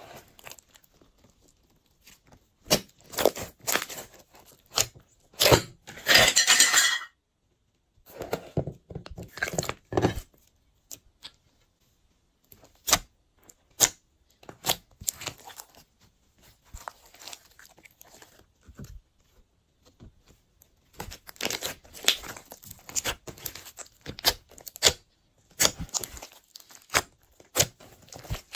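Glossy slime being squished, stretched and folded by hand, giving irregular sticky squelches, clicks and pops. There is a denser, louder run of it about six seconds in, and short pauses around the middle.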